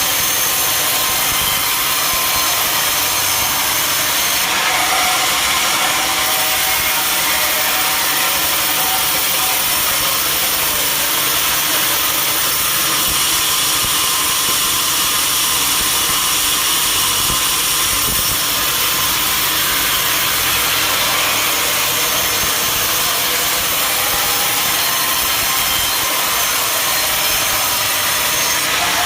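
Engine-driven sawmill running steadily while its saw cuts through mahogany wood, a loud continuous noise without breaks.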